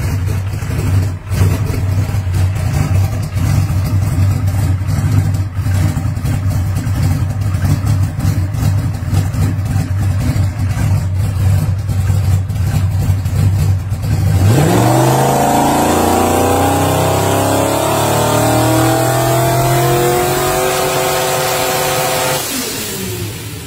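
Twin-turbo billet Ford Coyote V8 drag engine idling with a low, choppy note. About two-thirds of the way in it is revved up sharply and held at high revs for several seconds, then drops back near the end.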